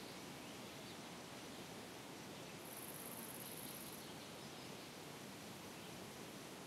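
Faint outdoor nature ambience of a virtual-reality meadow: a soft, steady hiss, with a high insect trill lasting about a second around three seconds in.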